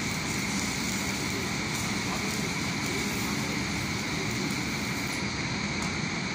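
Electric arc welding on a steel crane rail: the arc's steady crackling hiss, which stops about five seconds in. A steady background noise runs underneath throughout.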